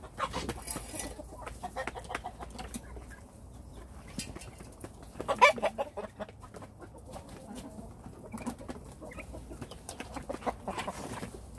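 A flock of chickens clucking as they feed, with many quick sharp taps of beaks pecking at the feed pan. One louder call stands out about five and a half seconds in.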